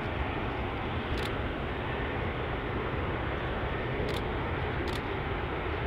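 Airbus A380's four turbofan engines at taxi power: steady jet noise with a low rumble, and a few brief faint clicks.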